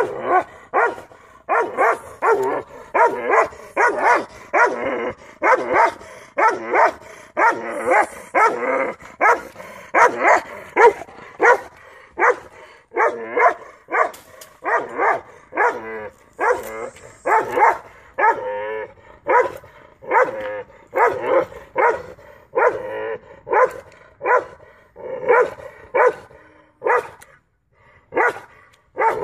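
A seven-month-old Caucasian Shepherd dog barking repeatedly, a steady run of about one and a half barks a second.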